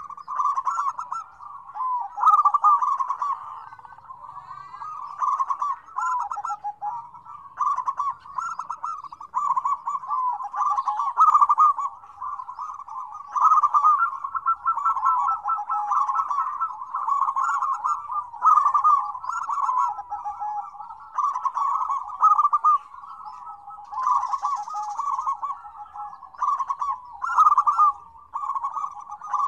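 Several zebra doves (perkutut) cooing at once, their calls overlapping into a busy, almost unbroken chorus.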